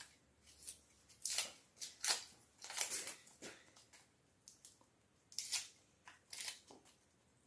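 A knife cutting food: a dozen or so short, crisp cuts at uneven spacing.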